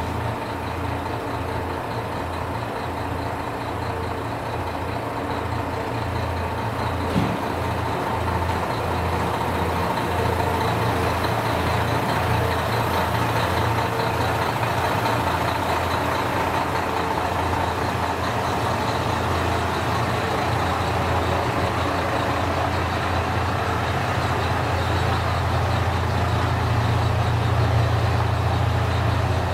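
KiHa 54 diesel railcar's engine idling while the car stands at the platform: a steady low hum that grows a little louder toward the end. There is a brief knock about seven seconds in.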